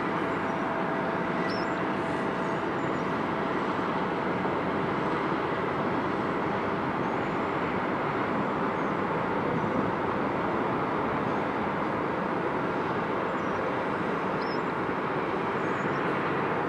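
Steady, even rumble of heavy open-pit mining machinery: a bucket wheel excavator and the belt conveyors of a spreader boom running.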